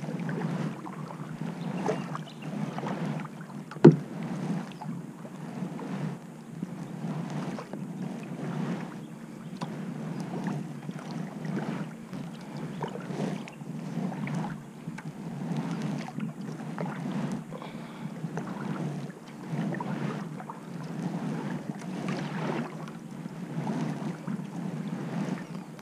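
Kayak paddle strokes in calm water: the blades dip and pull through with splashes and drips, about one stroke every second or so. A single sharp knock about four seconds in is the loudest sound.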